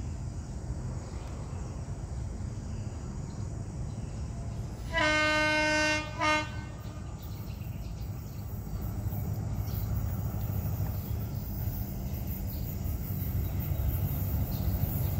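Diesel locomotive horn of an approaching container train: one blast of about a second, then a short second blast, a warning as the train nears the station. A low rumble from the oncoming train grows louder toward the end.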